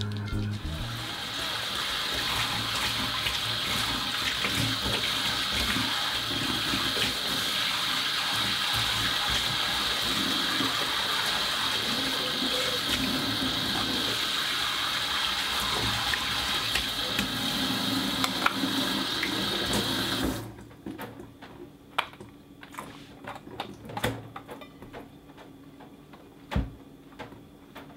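Kitchen tap running into a stainless steel sink as a steel bowl is rinsed under the spray. The water is shut off about twenty seconds in, leaving a few light knocks.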